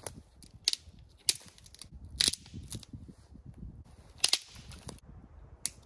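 A dry dead branch being snapped by hand into pieces: about six sharp cracks, unevenly spaced.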